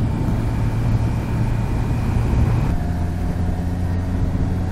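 Honda CBR650F's inline-four engine running steadily on the move. Its note changes about two-thirds of the way through as the bike turns onto a side street.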